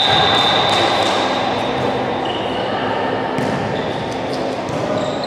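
Echoing sports-hall hubbub: many voices talking at once, with a few scattered knocks.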